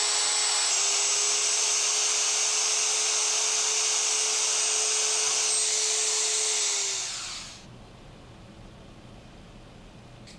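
Electric plunge router with a 17mm guide bushing running at full speed with a steady high whine while routing an inlay pocket in plywood. About six and a half seconds in it is switched off and its pitch sags as it spins down within about a second, leaving only faint room sound.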